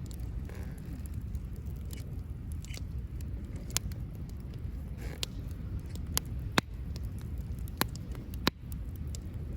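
Wood campfire crackling, with about six sharp pops in the second half over a steady low rumble.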